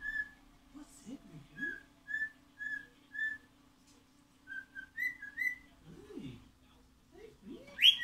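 Cockatiel whistling a series of short, clear notes, about two a second, with a rising whistle near the end.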